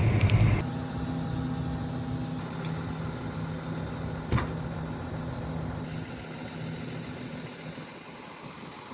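Tractor engine running steadily. It drops suddenly to a quieter, even hum just after the start, with a single sharp click about four seconds in.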